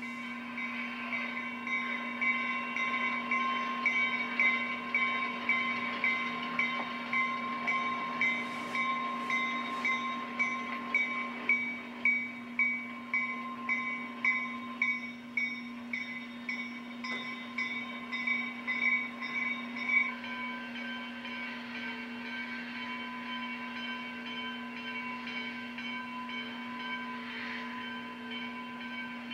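Locomotive bell ringing steadily, about one and a half strokes a second, over a steady low drone. After about twenty seconds the bell stops, leaving a steady hiss and drone.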